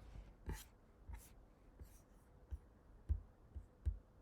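Faint handling noise: several soft thumps and a couple of sharp clicks, with short rustles in between.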